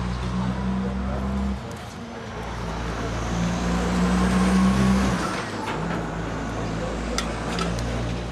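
Large diesel truck engine running, revved up and louder for a couple of seconds in the middle with a faint whine rising and falling, then settling back to idle. A few sharp clicks come near the end.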